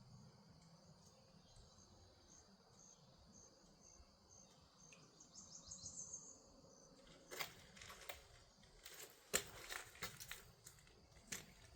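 Faint steady high-pitched insect buzz with repeated short high chirps. From about seven seconds in comes a string of sharp clicks and crackles.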